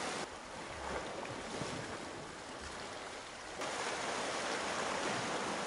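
Sea waves washing against a rocky shore: a steady rushing noise that gets louder about three and a half seconds in.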